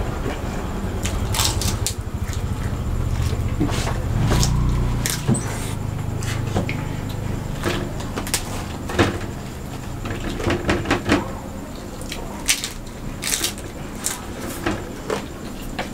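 Close-up eating sounds: crisp fuchka shells crunching, chewing, and fingers clicking against plates and bowls, in scattered short crackles. A steady low rumble runs through the first five seconds.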